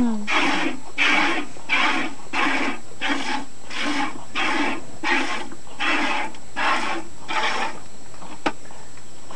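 Cow being milked by hand: jets of milk squirt into a container in a steady hiss, about two squirts a second. The squirting stops about 8 seconds in, followed by a single click.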